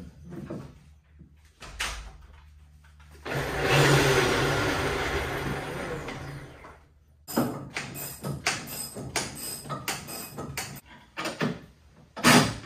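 Metal hardware being worked while an outboard's riser bracket is bolted to a boat transom: about a second in, a few knocks; then a rough rushing noise with a low hum underneath for about three seconds, fading out; then a run of quick irregular clicks and knocks, the loudest near the end.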